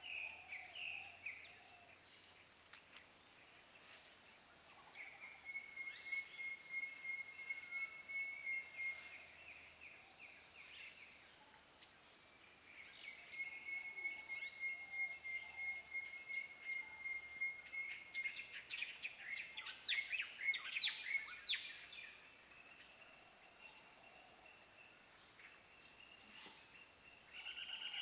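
Insects keep up a steady high-pitched chorus, with birds calling over it. Two long, even trills are held for a few seconds each, and a quick flurry of chirps comes about twenty seconds in.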